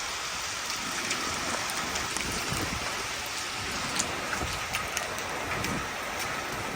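Heavy hurricane rain falling: a steady hiss with scattered drop ticks.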